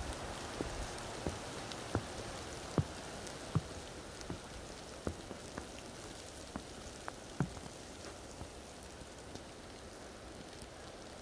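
Wet snow falling through trees: a steady soft hiss with irregular drops tapping down, a few louder taps in the first half.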